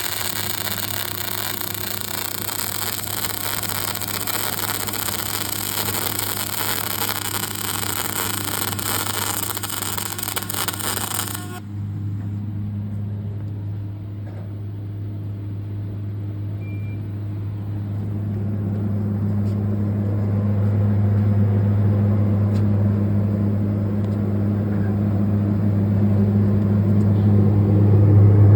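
Daihen CPXD-500 semi-automatic welding machine powered up, giving a steady electrical hum. A loud hiss over the hum cuts off suddenly a little under halfway through. The hum then grows louder toward the end.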